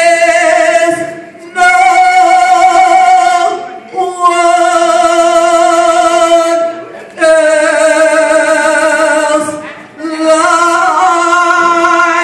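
A woman singing a worship song solo with no accompaniment, drawing out long held notes with vibrato in about five phrases of two to three seconds each, with short breaths between them.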